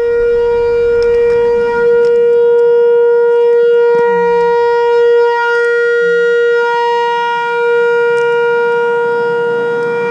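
Whelen WPS-4004 electronic outdoor warning siren sounding its Alert signal: one loud, steady tone held at a constant pitch, swelling and dipping slightly in level.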